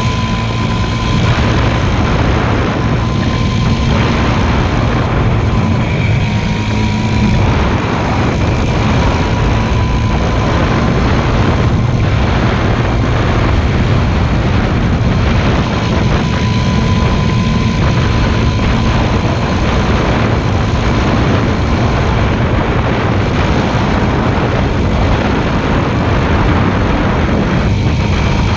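Motorcycle engine running at a steady speed, a loud continuous drone with no let-up.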